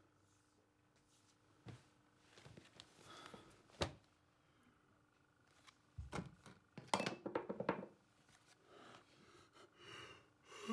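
A man yawning loudly, drawn out with a groaning voice, about six seconds in, with another yawn starting near the end. Before it, a few faint clicks and paper rustles.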